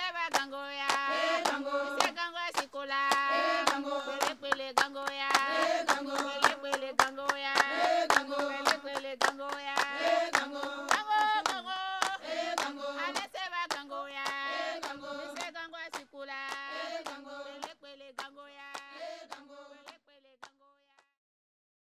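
Music: voices singing together in held notes over a steady beat of hand claps, about three claps a second, fading out shortly before the end.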